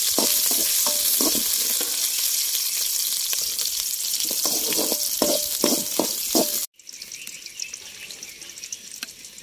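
Sliced onions sizzling in hot oil in an aluminium kadai, with a steel ladle scraping and clinking against the pan as they are stirred. About two-thirds through, the sizzling cuts off suddenly, leaving a much quieter stretch with faint clicks.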